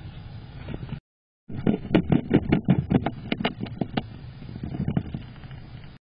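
A squirrel scrabbling and thumping against the wooden floor and walls of its nest box, close to the camera's microphone. It makes a quick run of about a dozen sharp knocks and scratches, loudest between about two and four seconds in, then softer knocks. The sound cuts out completely for half a second near the start.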